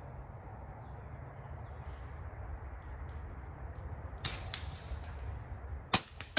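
Sharp cracks of air rifle shots and pellets striking metal field-target knockdowns: two cracks close together about four seconds in, then a louder one about six seconds in, over a steady low rumble.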